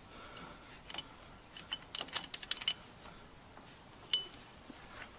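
Light metallic clicks and clinks from hand work on a John Deere 2320's front-axle steering knuckle: a single click about a second in, a quick run of about seven clicks around two seconds in, and one ringing click about four seconds in.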